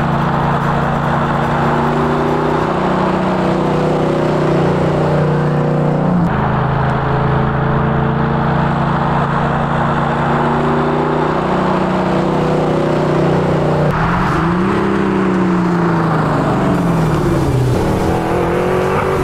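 Ford Capri racing replica's 302 small-block Ford V8, on Holley carburettors and straight-through exhausts, accelerating hard through the gears: the engine note climbs, drops at a gear change about six seconds in and climbs again. In the last few seconds the car passes by and its note falls away.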